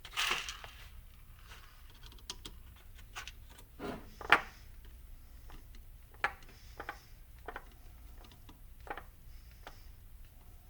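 Small metal parts and hand tools clicking and tapping at a workbench as screws and nuts are fitted into a drive hub assembly, with a brief rustle at the start and one sharper click about four seconds in.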